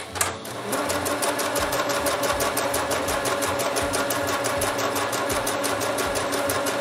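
Singer computerized sewing machine starting with a click and coming up to a steady speed about a second in, its needle stitching fast and evenly through layered quilted fabric while sewing gathering stitches.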